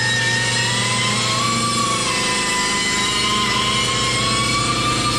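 Angle grinder running against a lawnmower blade, its motor whine wavering slowly up and down in pitch as the load on the wheel changes, with a grinding hiss, over a steady low hum.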